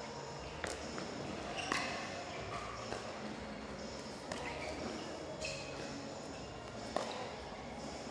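Pickleball paddles striking the plastic ball during a rally: about six sharp pops, roughly one to one and a half seconds apart.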